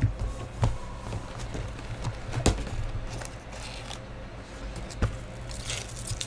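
A cardboard trading-card hobby box being handled and opened, with several knocks as it is set down and pulled at. Near the end the foil card packs crinkle as they are lifted out, over a low steady hum.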